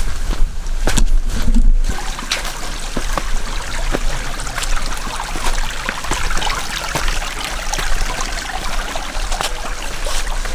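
Water from a small forest waterfall trickling and splashing steadily, with a low rumble of wind on the microphone.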